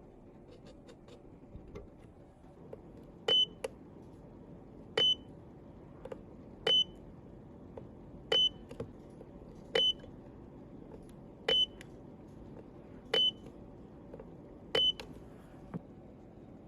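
Electronic beeping from a bench device: eight short high beeps, about one every 1.6 seconds, with faint clicks between them.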